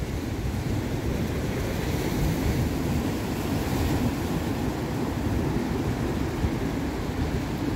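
Ocean surf breaking and washing over a rocky reef, with one wave bursting against the rocks around the middle, and wind buffeting the microphone with a low rumble.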